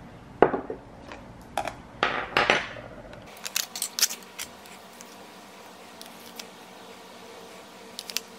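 Small ceramic bowls knocked and set down on a wooden tabletop, several sharp knocks in the first few seconds. Then a cluster of plastic clicks as a tub of qishta cream is opened and emptied into a bowl, followed by quieter handling.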